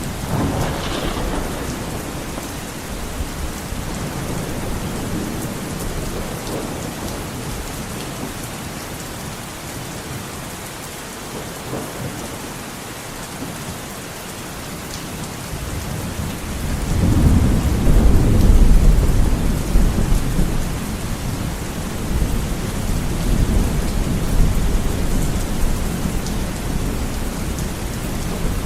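Heavy rain beating steadily on a window pane, with thunder rumbling. A long, deep rumble builds a little past halfway, is loudest for a few seconds, then dies away slowly under the rain.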